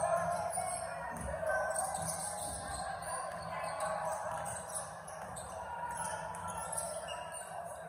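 Basketball being played on a gym's hardwood court: sneakers squeaking in short, wavering chirps and a ball bouncing, with faint voices in the hall.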